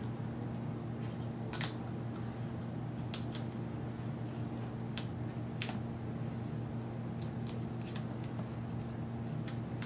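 A scattering of short crackles and clicks as adhesive tape is peeled up from the AirPort antenna cables along the top edge of a MacBook Air's top case, over a steady low electrical hum.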